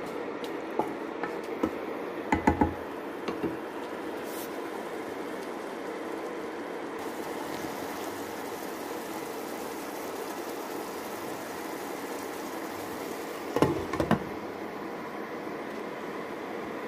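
A pan of tomatoes, onions and chilies simmering in liquid with a steady hiss, a wooden spatula knocking against the pan a few times in the first few seconds, and a short clatter of a glass lid being set on the pan near the end.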